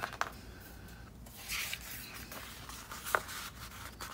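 Paper and sticker sheets being handled on a planner page: soft rubbing and rustling, with a few light clicks, the sharpest about three seconds in.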